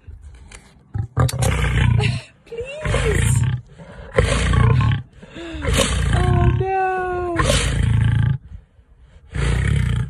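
Lioness growling in a series of loud, deep bursts, each under a second long, about one every second or so, a few of them with a drawn-out moaning tone.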